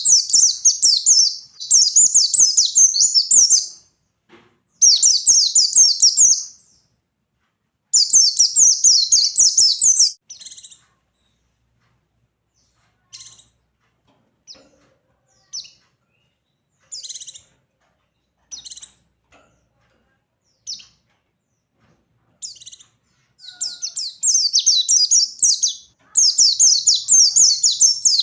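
White-eye (pleci) singing its rapid, high twittering warble in bursts of about two seconds, separated by short pauses. Through the middle there are only scattered single chirps, then a longer, almost unbroken run of song near the end.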